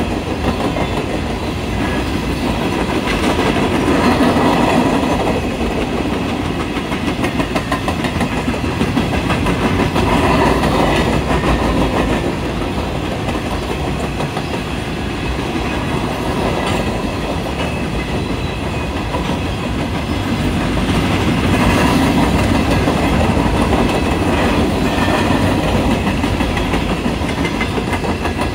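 Norfolk Southern coal hopper cars rolling past, their steel wheels clattering over the rails in a dense run of clicks over a steady rumble that swells and eases a few times.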